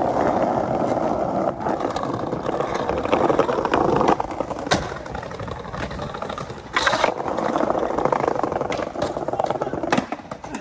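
Skateboard wheels rolling over paving tiles with a steady rumble, broken by a few sharp clacks. Near the end the board strikes a concrete ledge.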